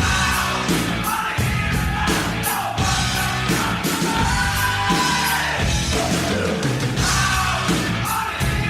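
Rock song playing, with a loud sung or shouted vocal over drums and guitars with a steady beat.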